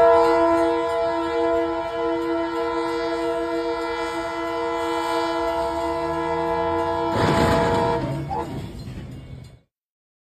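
Locomotive air horn sounding one long continuous blast of several notes together, then about seven seconds in a sudden loud crash as the train strikes a military truck on the crossing; the horn stops a second later and the crash noise fades out.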